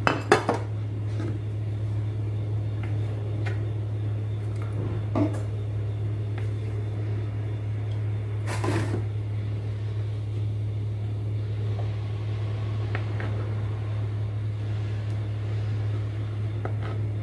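A steady low hum, with a few light knocks and clicks of a knife and plate as slices of chocolate mousse cake are served.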